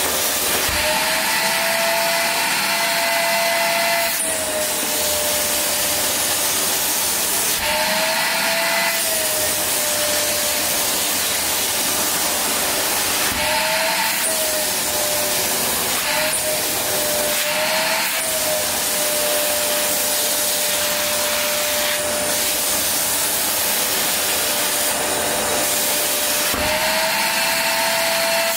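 Kärcher WD 1 Classic wet/dry vacuum cleaner running steadily, its motor whine over a rush of air. Several times the whine briefly rises a little in pitch and the air sound changes, then settles again.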